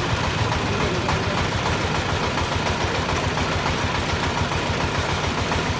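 Engine of a well-drilling rig running steadily, with a fast, even low pulse.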